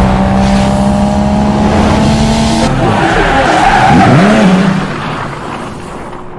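A loud vehicle sound that cuts in abruptly. It holds steady engine-like tones, then sweeps up and down in pitch, and fades away over the last second or so.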